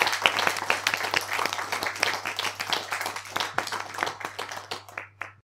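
Logo sound effect: a dense, irregular crackle over a low steady hum, thinning out and stopping shortly before the end.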